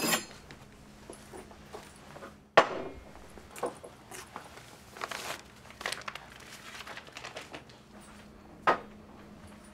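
Handling and movement sounds in a small room: scattered knocks and short rustles, the loudest a sharp knock about two and a half seconds in and another near the end, over a faint steady hum.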